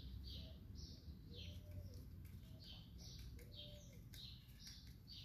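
A small bird chirping faintly and repeatedly, short high chirps at about two a second.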